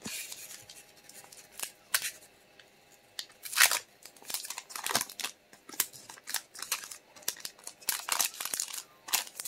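Foil Pokémon booster pack being crinkled and torn open: a string of short crackling rips and rustles, the loudest about three and a half seconds in.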